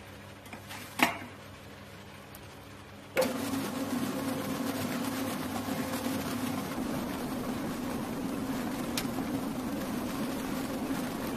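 Commercial planetary mixer with a wire whisk: a sharp metal clack about a second in as its wire safety guard is swung down, then the motor starts suddenly about three seconds in and runs at a steady pitch, whisking the batter in the steel bowl.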